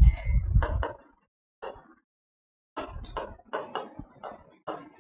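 Chalk writing on a chalkboard: short scratches and taps as letters are written, coming as a quick run of ticks in the second half.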